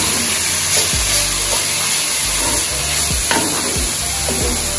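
Minced beef and chopped vegetables sizzling in a cast-iron skillet while a wooden spoon stirs them, scraping and knocking against the pan several times.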